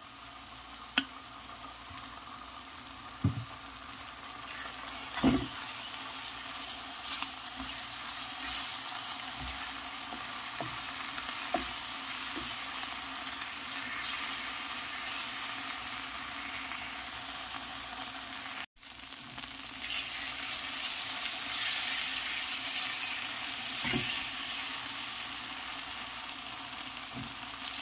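Onion and tomato sauté sizzling steadily in a frying pan as a wooden spatula stirs it, with a few knocks of the spatula against the pan. The sizzle cuts out for an instant about two-thirds through and comes back louder.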